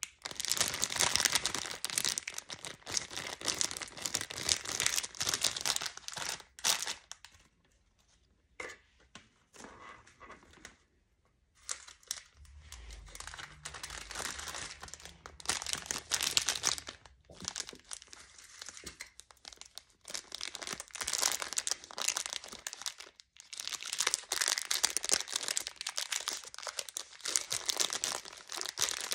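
Clear plastic candy bags crinkling and rustling as they are handled, in crackly bursts, with a quieter, patchier stretch in the middle.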